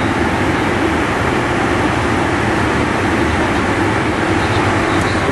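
Steady cockpit noise of a Cessna Citation V Ultra business jet in fast cruise-speed flight: an even rush of airflow mixed with the hum of its Pratt & Whitney JT15D turbofans.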